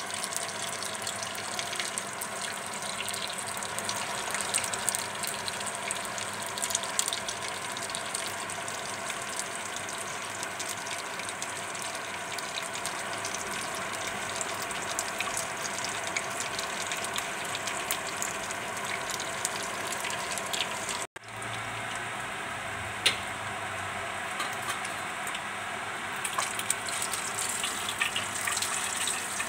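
Tilapia (mujair) frying in shallow oil in a nonstick wok: a steady sizzle with many small crackling pops. The sound briefly cuts out about 21 seconds in, and a single sharp click stands out about two seconds later.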